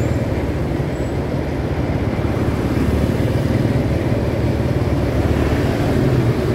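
Steady road traffic noise heard while riding through a city street: a vehicle engine running with a continuous low rumble of tyres and wind, unchanging throughout.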